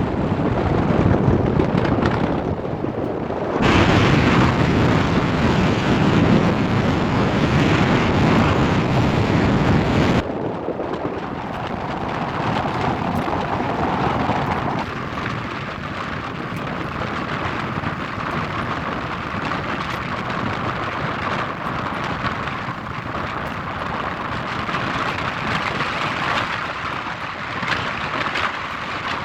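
Steady outdoor noise of a city in falling wet snow, with no clear single source. It changes abruptly about four seconds in, is deeper and louder until about ten seconds in, then drops to a quieter, thinner hiss.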